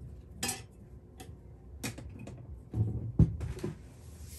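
Off-camera rummaging and handling of objects: a few light knocks and clicks, then a heavier thud with a sharp knock a little after three seconds in.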